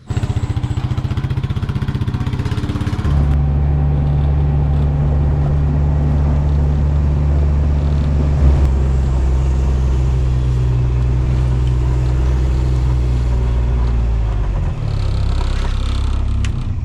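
Truck engine running steadily. About three seconds in it steps up to a higher, louder note, and it cuts off abruptly at the end.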